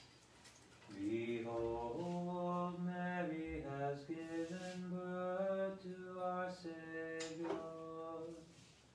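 Men singing a slow, chant-like hymn in long held notes, starting about a second in and fading near the end.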